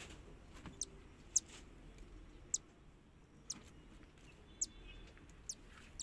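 Short, high-pitched peeps from a newly hatched cockatiel chick, about seven in all, coming roughly once a second. They are begging calls while it is hand-fed.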